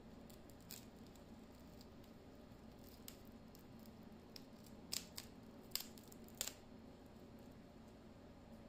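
Scattered small, sharp clicks, about six, most of them in the second half, over near-silent room tone.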